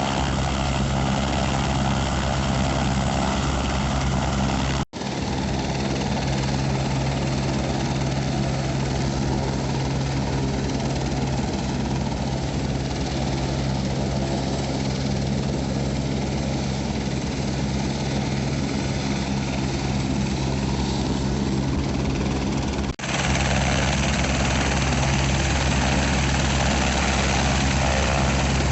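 Helicopter running steadily, its rotor and turbine making a loud, even drone. The sound drops out briefly twice, about five seconds in and again near the last few seconds, where the footage is cut.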